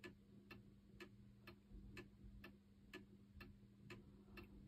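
Old pendulum wall clock ticking faintly and evenly from its escapement, about two ticks a second: the tick-tock of a clock beating 7200 times an hour.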